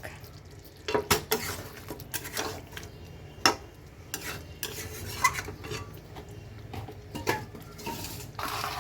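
A metal spoon stirring and scraping a thick chicken curry in a cooking pot, with irregular clinks of metal on the pot, the sharpest about three and a half seconds in.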